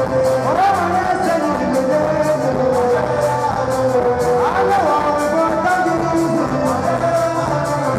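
Loud music over PA loudspeakers, with a steady beat and held notes; a rising-and-falling melodic phrase comes round about every four seconds.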